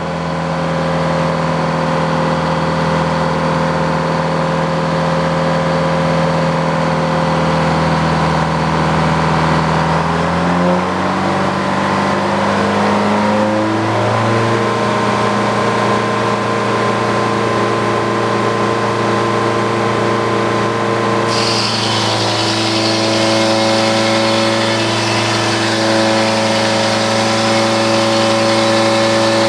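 Engine-driven Frick circular sawmill running under way through an oak log: a steady engine drone whose pitch steps up about ten seconds in and again a few seconds later. A hissing rush joins about two-thirds of the way through.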